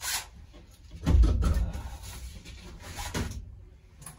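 Knocks and thumps of someone working inside a truck cab. The loudest is a heavy low thump about a second in, with lighter knocks after it and a small click near the end.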